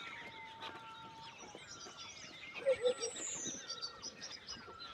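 Chickens calling in a flock: a dense mix of high chirps and peeps, with a few louder low hen clucks a little past halfway.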